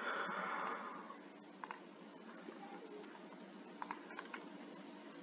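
Quiet room tone with a short, soft rush of noise at the start, then a few faint, scattered clicks of a computer mouse.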